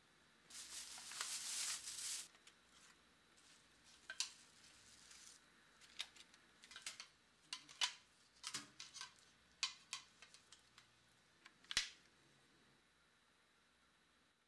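Small handling sounds of photos and a picture frame. A papery rustle lasts for about the first two seconds, followed by a scattered series of small clicks and taps. The loudest click comes near the end.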